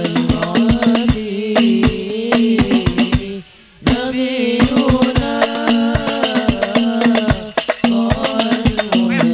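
Sholawat devotional song: a male voice singing over a hadrah ensemble of frame drums, bass drum and goblet drum beating a fast, even rhythm under a held low chord. The music drops out for about half a second roughly three and a half seconds in, then comes back.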